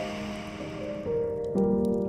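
Soft background music of slow, sustained chords, changing to a new chord about a second and a half in. A soft hiss fades out about a second in, and faint fireplace crackles tick underneath.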